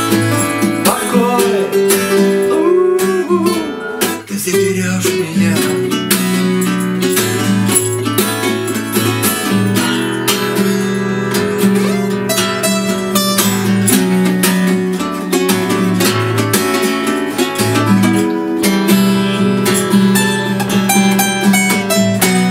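Two acoustic guitars strumming and picking together, playing a steady song accompaniment.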